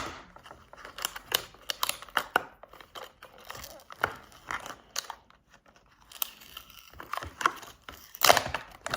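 Plastic wrapper on a Rubik's cube package crinkling and tearing as it is pulled off by hand, in irregular crackles with a short lull midway and a louder burst near the end.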